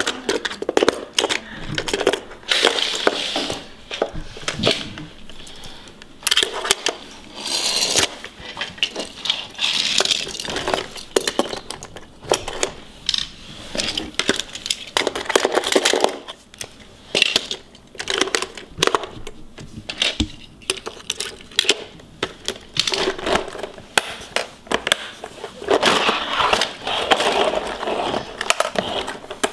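Diecast toy cars clicking and clattering against the hard plastic of a car-carrier case as they are slotted into its compartments, with knocks and rattles of the case and its clear plastic cover being handled. Irregular small knocks throughout, none held for long.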